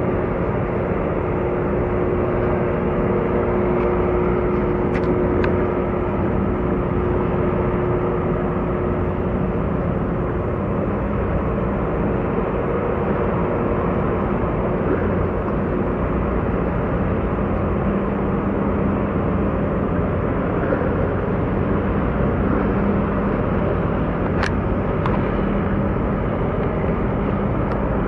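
Small boat's engine running steadily under way, mixed with the rush of water along the hull. Its hum shifts to a lower note about halfway through.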